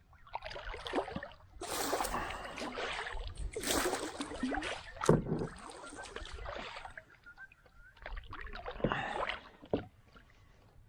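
Water splashing and sloshing around a kayak in irregular bursts, with a sharp knock about five seconds in.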